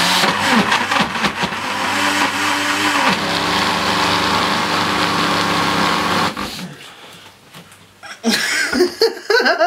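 Countertop blender running at its fastest speed on soapy water with a sponge and scouring pad inside, a loud steady whir with a low hum. The motor note settles after about three seconds and runs down and stops about six and a half seconds in.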